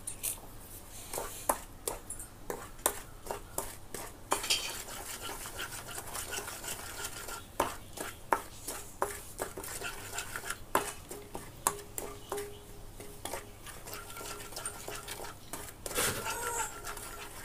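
Wooden spatula scraping and knocking against a nonstick pan while sugar is stirred as it melts into caramel: irregular taps and scrapes.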